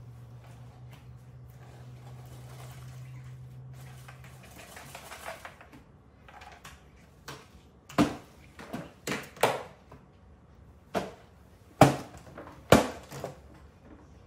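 A series of sharp knocks and clatters on a wooden table, about eight in the second half, as cereal boxes and dishes are picked up and set down. A low hum runs underneath at first and stops about four seconds in.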